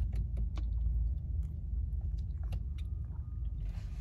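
A person drinking water from a plastic bottle: soft swallowing and gulping clicks scattered through, over a steady low rumble in the car cabin.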